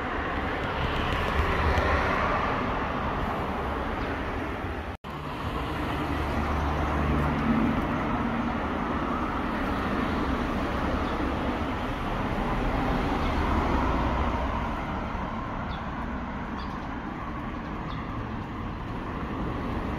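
Road traffic: a steady rumble of cars passing, swelling and fading, with the sound cutting out for an instant about five seconds in.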